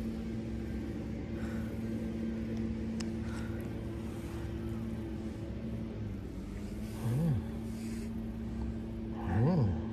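A steady low mechanical hum, like a motor running nearby, with two short calls that rise and fall in pitch, one about seven seconds in and a louder one near the end.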